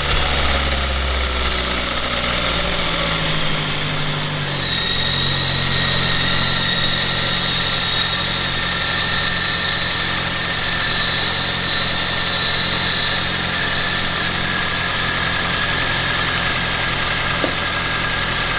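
Ford C-Max's four-cylinder petrol engine idling, its raised idle dropping to a lower steady idle about four and a half seconds in. A steady high whistle runs over it, which the mechanic takes for the engine drawing false air through an intake vacuum leak.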